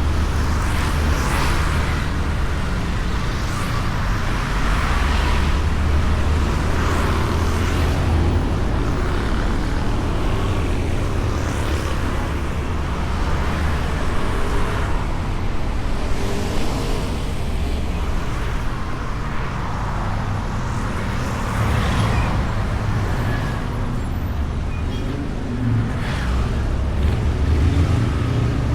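Riding a Honda Beat scooter in traffic: a steady low wind and road rumble on the bike-mounted microphone, with other vehicles swishing past every few seconds.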